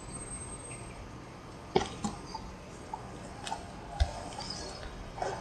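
A few scattered short clicks and light knocks over a low, steady background hiss.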